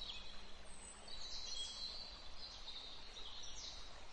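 Faint high bird chirps over steady background noise.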